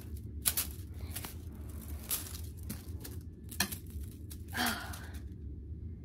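Plastic rainbow Slinky's coils clicking and rustling against one another as it is stretched out and collapsed back between the hands, in a run of irregular light clicks.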